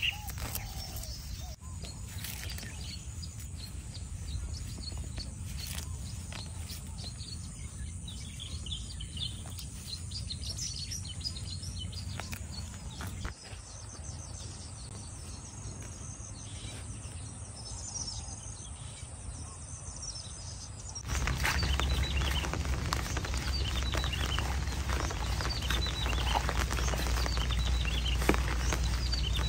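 Rural field ambience with birds chirping here and there over a steady background hiss. About two-thirds of the way in it cuts to a louder steady low rumble with busier chirping, the sound of the field on a rainy day.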